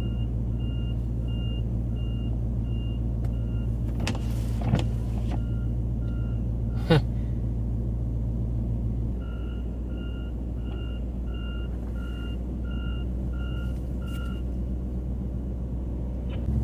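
A vehicle's reversing alarm beeps steadily about twice a second, falls silent for a few seconds midway, then starts again, as a stuck vehicle shifts in and out of reverse trying to get free. A steady low engine hum sits underneath.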